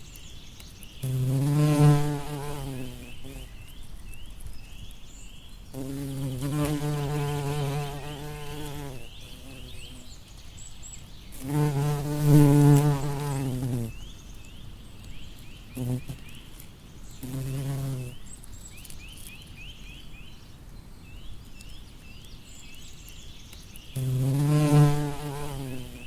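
Bumblebee buzzing in repeated passes past the microphone. Its low hum swells, bends in pitch and fades away several times, with gaps in between. A faint high chirping repeats steadily underneath.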